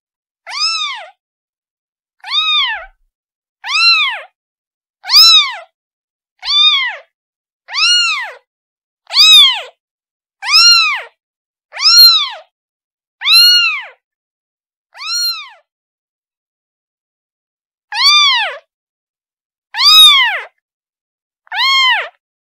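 Kitten meowing over and over: about fourteen short calls, each rising then falling in pitch, coming roughly every second and a half with a longer pause near the end. These are a kitten's calls for its mother.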